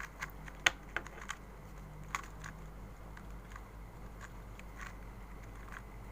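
Plastic clicks of a 2x2 puzzle cube being turned: a quick run of sharp clicks in the first couple of seconds, then fainter, scattered clicks, over a steady low hum.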